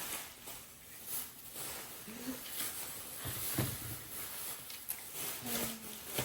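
Plastic grocery bags rustling as groceries are handled, with a dull knock a little past the middle.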